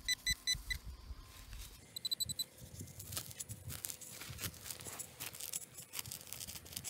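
A metal detector pinpointer beeping in rapid pulses at the start and again briefly about two seconds in, as it homes in on a target close to the surface. Then a hand digger cuts into dry turf with a run of crunching, tearing sounds.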